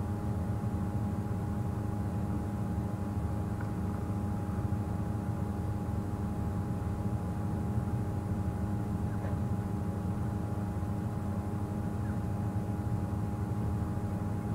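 Steady low rumble with a faint constant hum, typical of a safari game-drive vehicle's engine idling.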